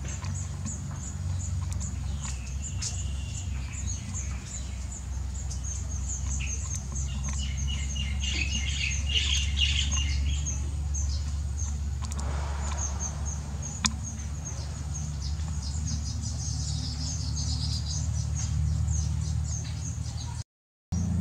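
Baya weavers chirping in many quick, high twitters, busiest a third of the way in and again near the end, over a steady low rumble.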